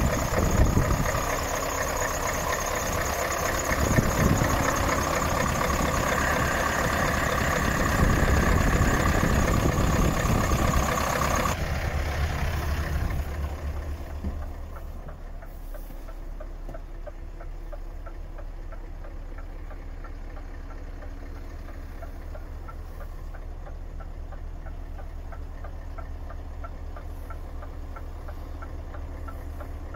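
Scania S580's V8 diesel idling steadily. About twelve seconds in the sound drops and turns muffled, heard from inside the cab, with a faint regular ticking over the low hum.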